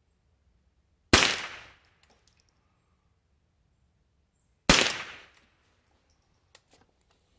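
Two shots from a .22 rifle, about three and a half seconds apart, each with a short echo that dies away over about half a second.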